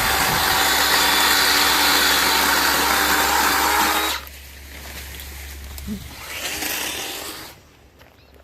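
Makita 18V cordless chainsaw running at full speed with a steady whine as it cuts, loud for about four seconds. It then drops to a much quieter running sound and cuts out near the end.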